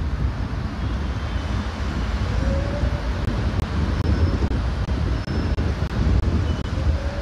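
Steady low rumble of wind buffeting the microphone mixed with distant road traffic.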